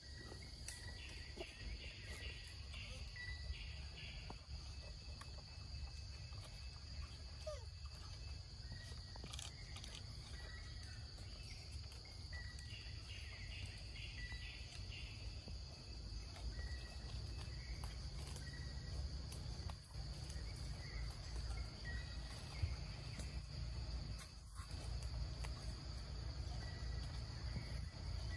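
Steady high-pitched drone of forest insects, with short chirps and two brief spells of rapid pulsing over it, and a low rumble of wind on the microphone.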